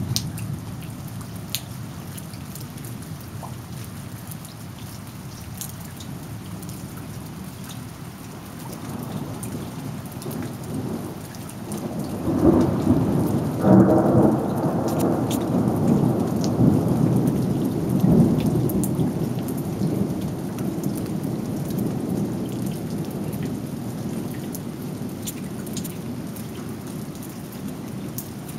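Thunderstorm: steady rain with a long rolling rumble of thunder that builds about a third of the way in, is loudest around the middle, and slowly dies away.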